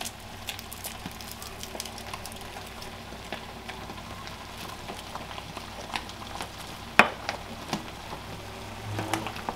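Stone pestle knocking and grinding garlic in a volcanic-stone molcajete, a few sharp knocks with the loudest about seven seconds in. Under it runs a steady sizzle of ground meat and potatoes cooking in a clay pot on the griddle.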